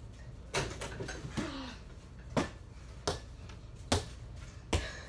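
A basketball bouncing on an indoor floor: about six separate bounces, a little under a second apart.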